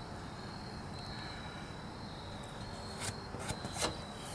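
Faint background with a steady thin high-pitched tone, and a few light clicks in the last second or so from the Posi-Lok actuator housing and the threaded cable end being handled.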